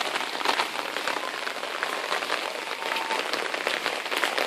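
Steady, dense patter of water dripping and falling onto leaves and paving just after a hailstorm, many small irregular drops.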